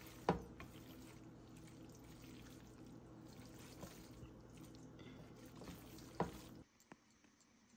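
Spaghetti being tossed with chopsticks in a stainless steel pan of cherry tomatoes and brie: a soft, steady sizzle and wet stirring, with a sharp click of the chopsticks on the pan twice, just after the start and near the end. The sound cuts off suddenly shortly before the end.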